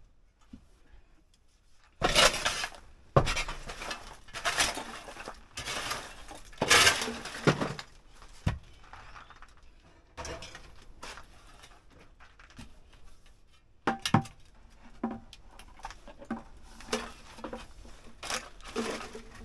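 Household junk being handled and tossed: a series of clattering knocks and clinks of metal and glass objects, with scraping and rustling between them.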